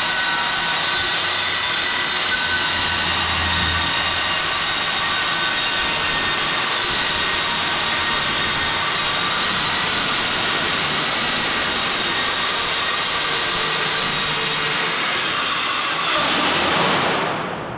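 Angle grinder grinding along the edge of a steel plate, a steady high whine over a harsh grinding noise. It stops near the end and winds down.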